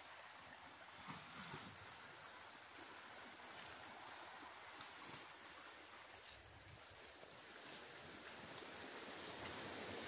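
Faint, steady wash of sea waves against a rocky shore, with a few light ticks.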